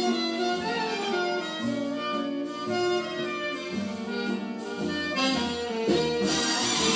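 Jazz recording played through a Pye PF91 valve amplifier with KT66 output valves: an instrumental passage with saxophone and brass, without the vocal.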